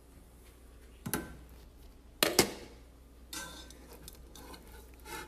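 Metal cooking pot and lid being handled: a few knocks and clanks, the loudest a pair of sharp knocks just over two seconds in, with softer scraping after them.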